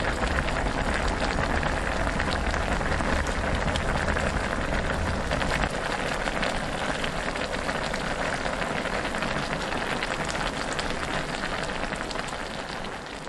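Budae-jjigae (spicy Korean sausage stew) bubbling hard at a rolling boil in a cast-iron pot, a dense steady crackle of popping bubbles. A low rumble under it drops away about halfway through, and the bubbling fades out at the very end.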